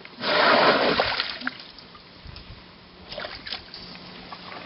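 African elephant drinking at a swimming pool's edge: a loud splash as its trunk works the water, lasting about a second, then smaller splashes and drips about three seconds in.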